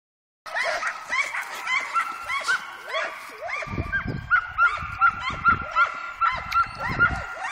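Dogs yipping and barking in a quick run of short, high calls, several a second, with low thuds through the second half.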